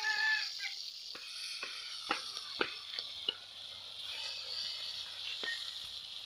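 Fish pieces frying in hot oil in a black iron wok, a steady sizzle, with a metal spatula clicking and scraping against the pan several times as they are stirred.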